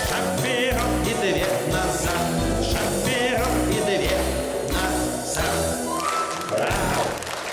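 Live band playing the closing bars of a bouncy dance song over a steady bass beat, with trilled figures and a rising run near the end before the music stops.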